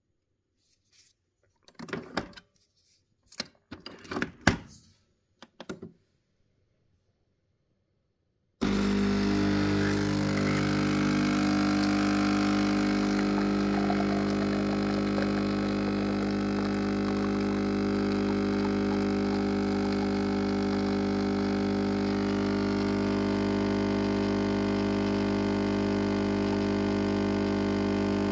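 A few sharp clicks and knocks of a capsule being handled. After a few seconds of quiet, the Nespresso machine's pump starts abruptly and runs with a steady, loud buzzing hum while it dispenses into the glass.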